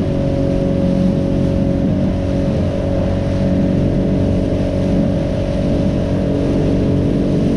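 Fishing boat's motor running steadily at speed under way, with a steady rush of wind and water over it.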